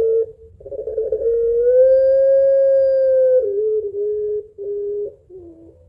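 Puter pelung, a domestic ringneck dove kept for its long voice, cooing. A short coo opens, then a long coo held for about two and a half seconds that rises slightly, then several shorter, lower coos.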